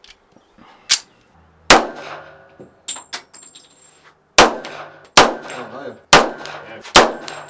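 Colt 1911 pistol in .45 ACP fired repeatedly, six sharp shots roughly a second apart, each ringing off with an echoing tail; a brief metallic tinkle about three seconds in.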